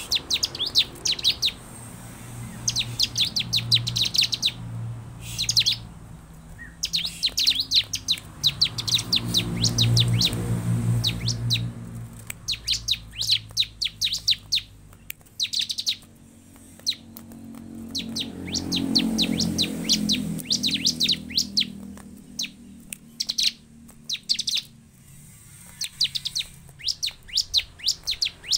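Bar-winged prinia (ciblek) singing: rapid trills of sharp, high chirps in bursts of a second or two, repeated with short gaps. A low drone swells and fades twice behind the song.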